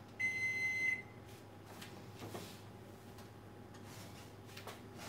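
A single electronic beep from a kitchen appliance's control panel as a button is pressed: one steady high tone lasting under a second. It is followed by a few faint knocks and clatters as the oven door is opened.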